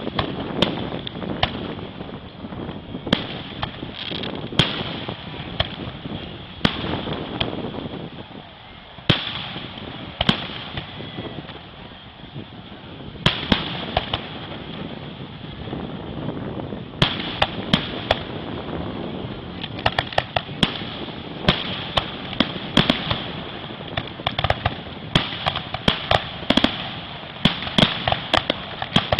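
Aerial fireworks shells bursting: a run of sharp booms and crackles, with a quieter spell about a third of the way in, then a dense volley of rapid bangs through the second half.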